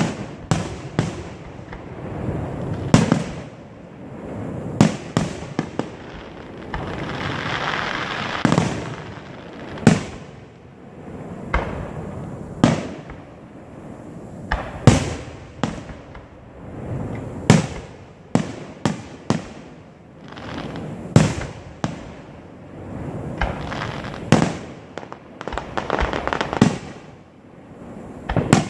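Aerial firework shells bursting in a display, a sharp bang every second or two, some in quick clusters, with rumbling echoes in between.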